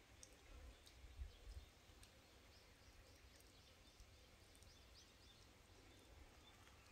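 Near silence: faint rural outdoor ambience with scattered short, high bird chirps and a low rumble on the microphone that swells about a second in.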